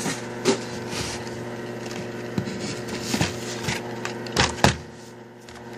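Blister-carded Hot Wheels cars and their cardboard case being handled: a few scattered light knocks and clicks over a steady low hum.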